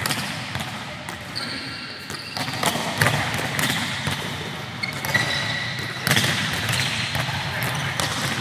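Many volleyballs being struck by hands and forearms and bouncing on a hard sports-hall floor, in an echoing gym, with short sneaker squeaks now and then.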